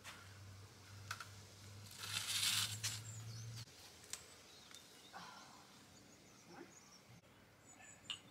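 Faint open-air ambience with a few small bird chirps, a low hum that stops after about three and a half seconds, and a brief rush of noise about two seconds in. Near the end, two ceramic mugs clink once in a toast.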